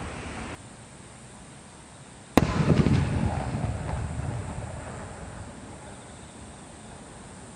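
Aerial fireworks: the crackling rumble of earlier bursts cuts off suddenly, then about two seconds in a single shell bursts with one sharp bang whose low rumble echoes and fades away over several seconds.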